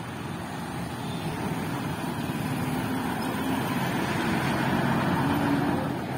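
Diesel dump truck driving past close by, its engine hum growing louder to a peak about five seconds in and then falling away as it goes by.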